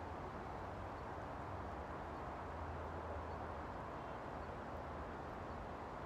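Steady outdoor background noise: an even low hum with a hiss over it, unchanging, with no distinct events.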